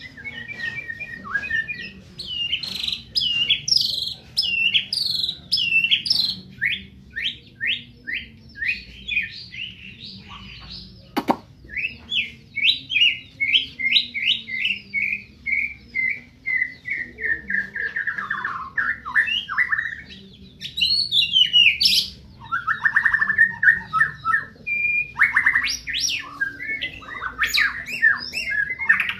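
White-rumped shama (murai batu, Medan type) singing a long, varied song of clear whistles and rapid runs of short sweeping notes, several a second. There is a single sharp click about eleven seconds in.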